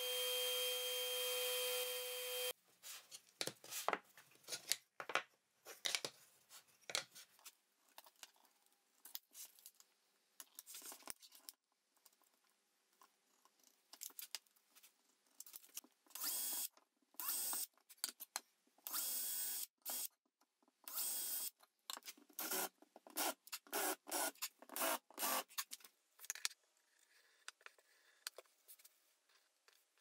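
A bench disc sander runs steadily and cuts off about two and a half seconds in, followed by scattered clicks and rubbing of wooden parts being handled. Later a cordless drill runs in a series of short bursts, drilling into plywood, before handling noises again near the end.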